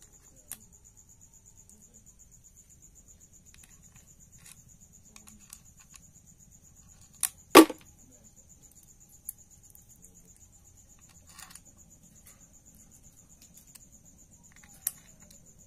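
Small steel bolts clicking together in a hand as they are picked out and started into an oil pump housing, with a few scattered sharp clicks and one loud metal clack about halfway through. A steady high-pitched trill runs underneath.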